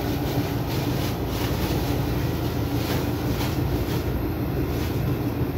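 Window-unit air conditioner running with a steady hum, with a few light crinkles of a plastic bag being handled.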